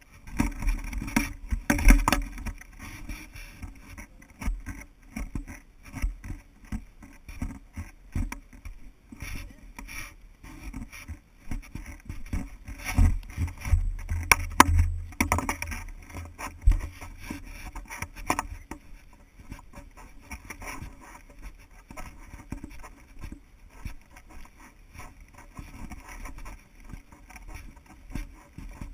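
Irregular footsteps on a dirt trail, mixed with knocks and scrapes from a body-worn GoPro camera jostling in its housing as the wearer walks. There is a louder stretch of low rumbling around the middle.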